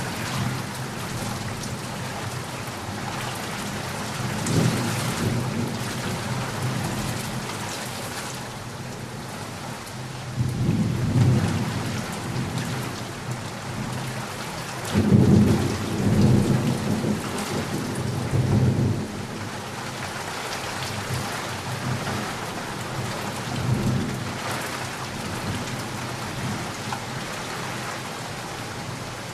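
Heavy rain falling steadily, with four rolls of deep thunder rumbling through it; the longest and loudest roll comes about halfway through.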